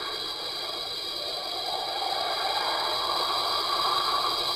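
Hissing noise from the soundtrack, swelling gradually louder, with no voices.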